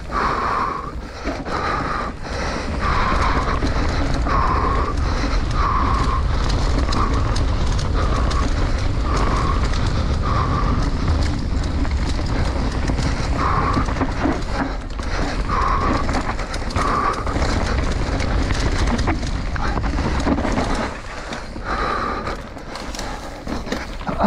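Mountain bike ridden fast down a dirt forest trail: a steady low rumble of tyres and wind on the camera, with constant small rattles and knocks from the bike over roots and bumps. Short puffs of the rider breathing hard come about once a second.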